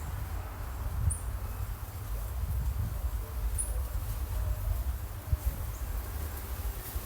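Outdoor garden ambience: a steady low rumble with short high bird chirps, two plain ones about a second and three and a half seconds in.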